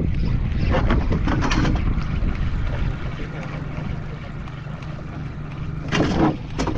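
Wind on the microphone and water noise around a small open fishing boat at sea. It is loud at first and eases off about halfway, with a couple of short, sharp sounds near the end.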